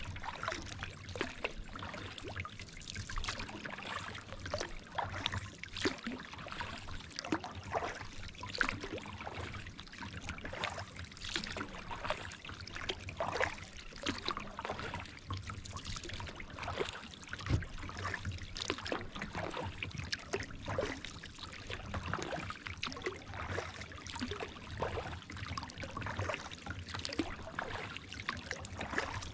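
Kayak paddling: water trickling and dripping off the paddle blades, with many small irregular splashes.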